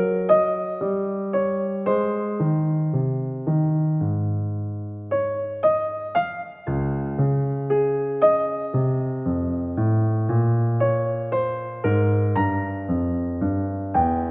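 Soft background music on electric piano: gentle notes and chords struck at an even, unhurried pace, about two a second, each fading after it is struck.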